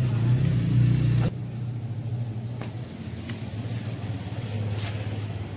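A motor vehicle engine running with a steady low hum, strong for the first second or so, then dropping abruptly and carrying on quieter, with a few faint ticks.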